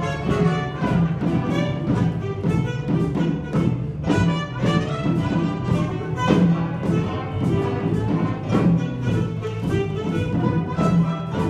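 Orchestral dance music with a steady beat.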